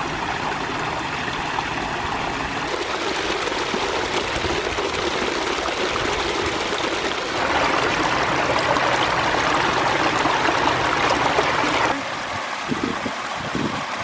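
Water from a backyard koi pond's rock-lined stream and small waterfalls, splashing and trickling over stones into the pond as a steady rush. It grows louder about halfway through and drops back near the end.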